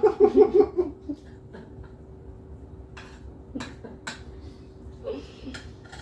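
A short laugh, then a few sharp clinks of spoons against metal plates as two people eat, over a faint steady hum.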